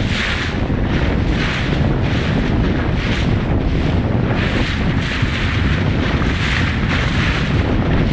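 Wind buffeting the microphone with a heavy rumble, over open-sea water sloshing against a small boat in swells about once a second.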